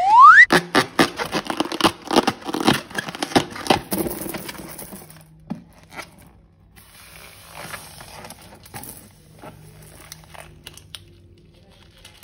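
A short rising rubbery squeak, then a dense run of crackling, crinkling and tearing handling sounds as a slime-filled balloon is cut open and its filling squeezed out. The sounds ease to softer scraping and rustling after about four seconds.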